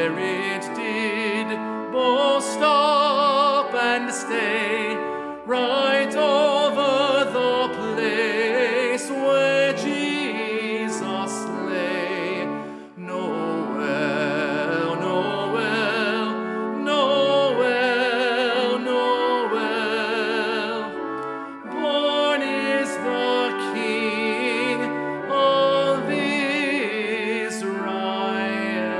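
Solo male voice singing a hymn with strong vibrato, over sustained accompaniment chords, phrase by phrase with brief pauses for breath.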